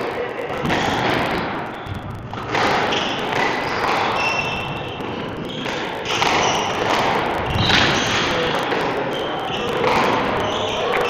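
Squash rally: the ball is struck by the rackets and thuds off the court walls, one shot roughly every two seconds, echoing in the court.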